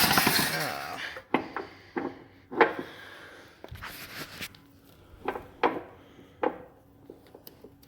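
Handling and rummaging through the shipping packaging of a new tilt hitch: a rustle in the first second, then a series of short knocks and rubs.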